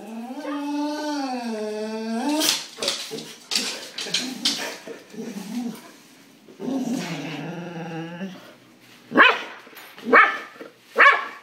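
Excited boxer dog vocalizing. It gives a long, wavering, pitched moan, then a few short yips, another drawn-out moan, and three loud barks about a second apart near the end.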